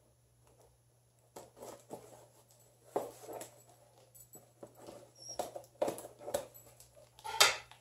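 Scissors snipping through a brown kraft-paper mailer bag, the paper crinkling as it is cut: a string of irregular crisp snips and rustles starting about a second and a half in, the loudest near the end.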